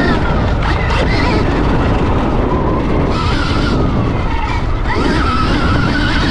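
Stark Varg electric motocross bike being ridden over dirt, its electric motor whining and gliding up and down in pitch with the throttle, under a heavy rumble of wind on the camera microphone.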